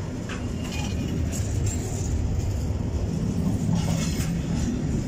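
Container freight wagons rolling past on the rails, a steady low rumble of wheels on track with a few short, sharp clicks and rattles.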